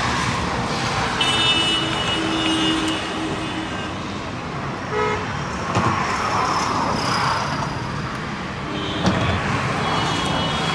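Road traffic going past, with vehicle horns tooting about a second in and again near the end.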